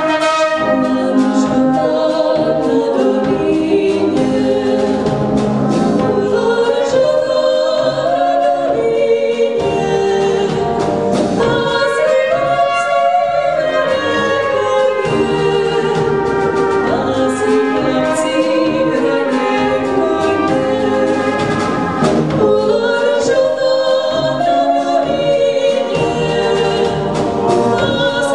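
Brass band playing a folk song, with two women singing the melody over tubas, tenor horns and trumpets.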